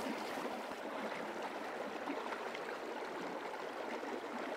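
Steady rush of a flowing river: an even, continuous water noise with no distinct splashes.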